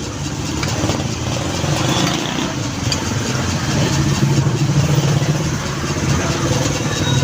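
A vehicle engine running close by, a steady low hum that grows louder a little past the middle.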